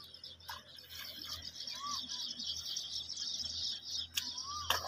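Steady, high-pitched chirping of birds in the background, with two short whistled calls, one about two seconds in and one near the end, and a few sharp clicks.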